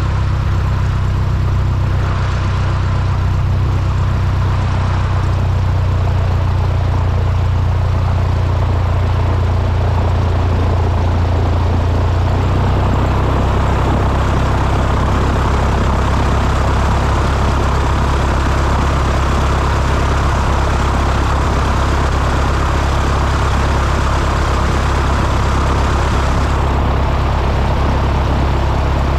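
An engine running steadily, a loud, continuous drone with a deep low hum that shifts in pitch about halfway through.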